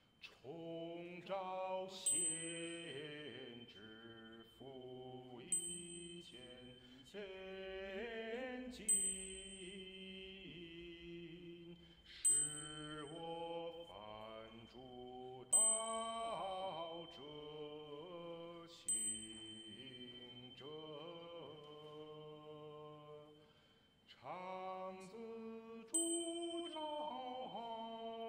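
Small mixed choir of women's and men's voices singing a cappella in several parts, a sustained Latin sacred motet. A sharp click with a brief high ring recurs about every three and a half seconds over the singing.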